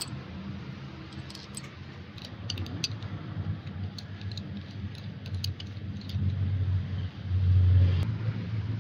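Small metal parts of a diesel injection pump clinking together as they are handled, a scatter of sharp clicks, over a low engine-like drone that swells near the end.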